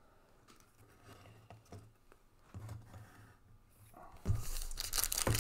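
Near quiet at first, then about four seconds in the crackling and crinkling of a trading-card pack wrapper being handled and torn open.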